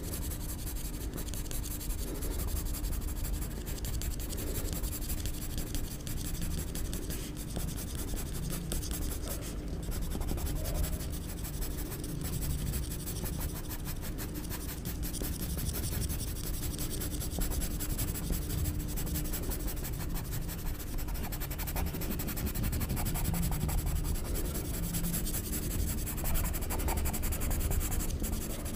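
Pencil scratching on paper in many short, quick strokes, drawing and shading the lines of a sketch.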